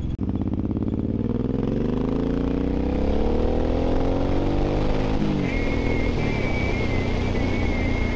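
Suzuki M109R's 1783 cc V-twin accelerating, its pitch climbing for about five seconds and then dropping at an upshift. After the shift, a thin, high, wavering squeak runs alongside the engine.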